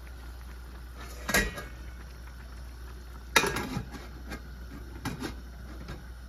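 Metal clanks of a stainless steel dome lid being handled and set onto a wok: three knocks with a short ring, the loudest about three and a half seconds in, over a steady low hum.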